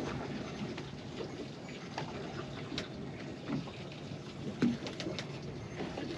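Water lapping and sloshing gently against the hull of a drifting boat, with a few faint scattered clicks and knocks.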